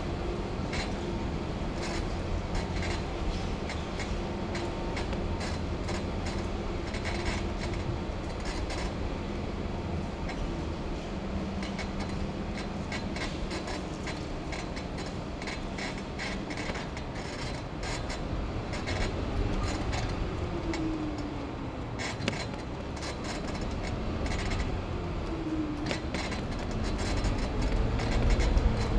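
Small open vehicle driving through a rock tunnel: a steady low rumble of motor and tyres with frequent rattling clicks, echoing off the tunnel walls. A whine slides in pitch now and then in the second half, and the noise grows louder near the end.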